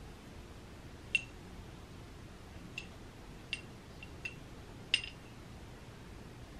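A spoon clinking and scraping against a small glass baby-food jar while food is scooped out: five light clinks over a few seconds, the one about a second in and the one near five seconds the loudest.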